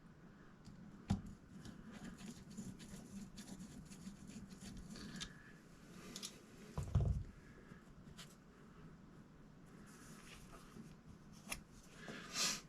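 Quiet handling of scope rings and their screws and tools: scattered small clicks and taps, with a sharp knock about a second in and a low thud about seven seconds in.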